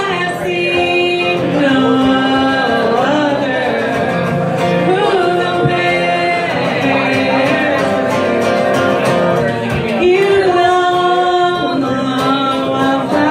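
Live country-style band: a woman singing lead with other voices joining in harmony, over strummed acoustic guitar.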